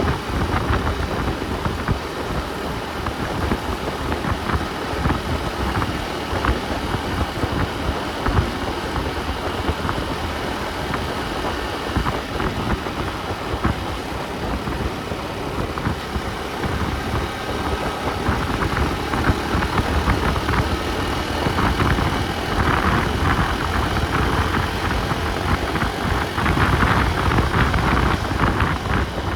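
Vehicle driving on the road: steady engine and road noise with a heavy low rumble.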